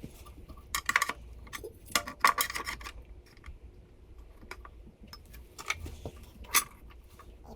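Metal parts being handled: clusters of sharp clanks and rattles about a second in, around two seconds in, and twice more near the end.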